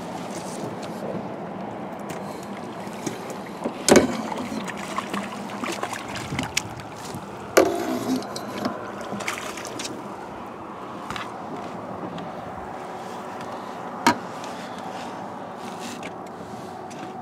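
A crappie being netted and brought aboard a small boat: water sloshing, with sharp knocks about four seconds in, near the middle and again near the end as the landing net bumps against the boat.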